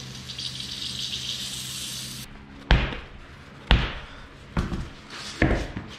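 Compressed air hissing steadily into a tyre through an inflator chuck, with a low hum, cutting off suddenly about two seconds in. Then the steel-wheeled tyre is bounced on the concrete floor four times, about a second apart, each a sharp thud.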